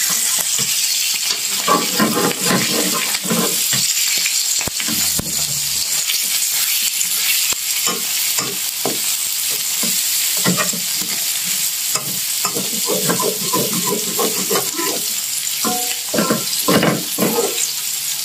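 Fermented fish pieces with sliced shallots and garlic sizzling in oil in a wok, with a steady hiss, while a metal spatula scrapes and stirs them against the pan in irregular strokes.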